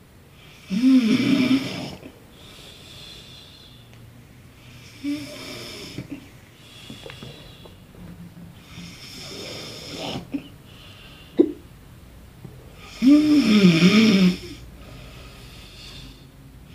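A man snoring in his sleep, a snore about every four seconds. The snores about a second in and about thirteen seconds in are loud with a wavering pitch; those between are weaker, with quieter breathing in the gaps.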